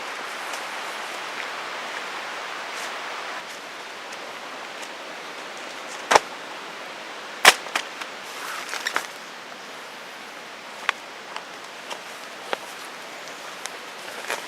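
A steady hiss for about three seconds, then scattered sharp knocks and clicks at irregular intervals. The two loudest come about six and seven and a half seconds in.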